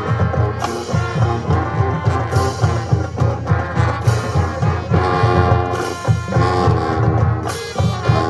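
High school marching band playing: sustained brass chords over drums, with a loud crash about every second and a half to two seconds.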